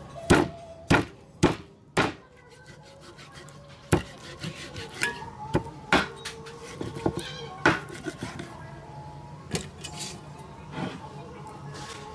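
Cleaver chopping through a whole fish into a wooden chopping board: four hard chops about half a second apart at the start, then lighter knocks and cuts spread through the rest.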